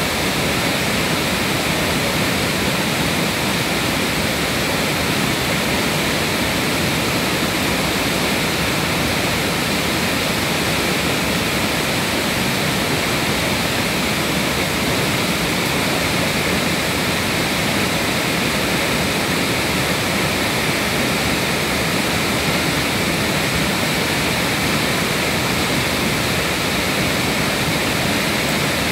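Steady rushing of flowing water, an even noise with no breaks or changes.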